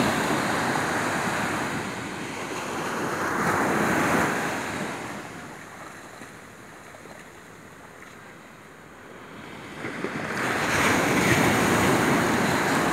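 Ocean surf: waves breaking and washing up the sand, swelling about four seconds in and again near the end, with a quieter lull between.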